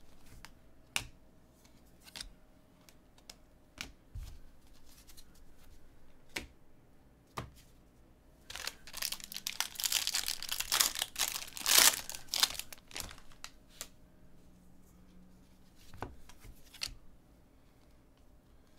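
A foil trading-card pack is torn open and crinkled, a few seconds of dense crackling about halfway through. Before and after it come scattered soft clicks of cards being flicked and slid through the hands.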